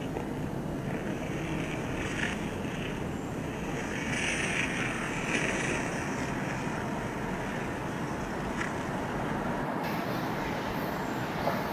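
Steady outdoor rushing background noise with no clear source, a little brighter about halfway through, changing abruptly about ten seconds in where the footage is cut.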